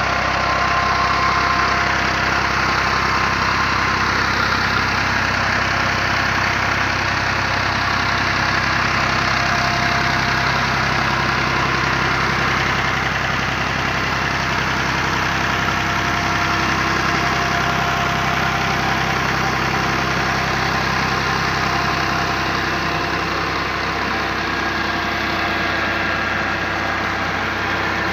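Massey Ferguson 260 Turbo tractor's diesel engine running steadily, driving a tubewell water pump through its drive shaft.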